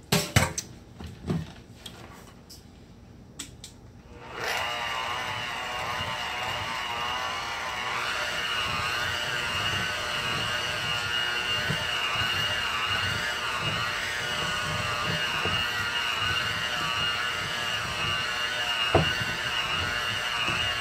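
A few handling clicks and knocks, then about four seconds in an electric hand mixer with twin wire beaters starts and runs steadily, its motor whine wavering as the beaters work through sugar-cookie dough in a glass bowl. Near the end a beater knocks once against the bowl.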